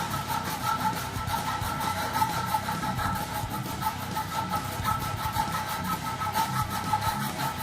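Hand hacksaw cutting through a solid silver bar held in a vise, with quick, even back-and-forth strokes. A steady high tone runs underneath and stops near the end.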